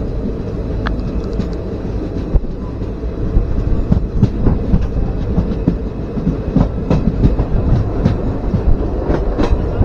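Ernad Express passenger train running on the track, heard at an open coach door: a steady rumble of wheels on rail with irregular clicks over rail joints and points, the clicks coming more often from about four seconds in.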